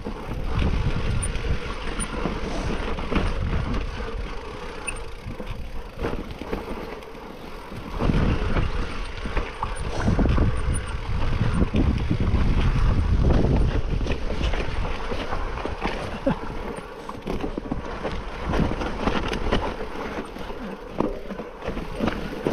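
Mountain bike riding down a rough forest trail: tyres rumbling over dirt and stones, with rattles and knocks from the bike over bumps and wind rumble on the microphone, loudest for several seconds from about a third of the way in.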